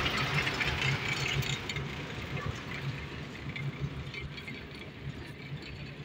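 Engine of the road-surfacing machinery running at a steady low pitch, gradually fading, with a rough hiss over it during the first two seconds.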